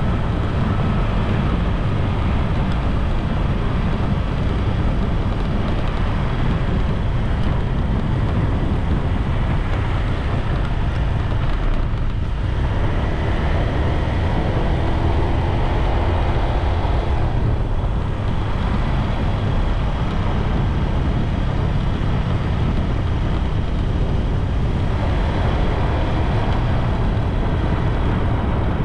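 Steady rush of wind buffeting the microphone, with road noise, while riding a bike along an open road. The rumble is heaviest at the low end and eases briefly twice.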